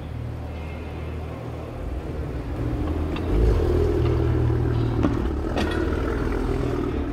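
Maserati car engine running, getting louder about three seconds in and then holding at a steady, deeper level.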